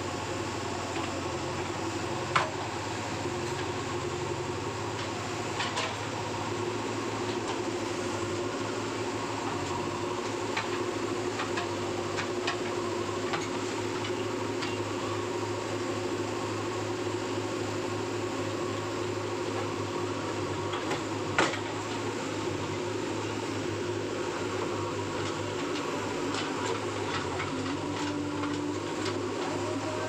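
JCB backhoe loader's diesel engine running steadily as its hydraulic arm and bucket dig out soil, with two sharp knocks, one a couple of seconds in and one about two-thirds of the way through.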